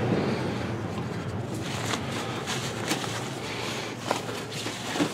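Quiet handling noise from a cardboard shipping box and its styrofoam packing being opened: faint rustling with a few light taps.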